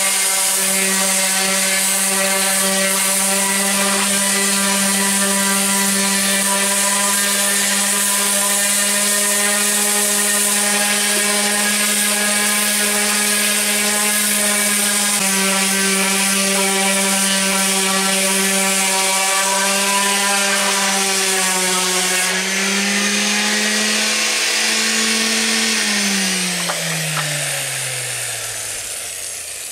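Black & Decker rotary palm sander with an 80-grit disc running steadily as it sands old clear coat off wooden bench slats. A few seconds before the end its hum rises briefly, then it is switched off and winds down in a falling hum.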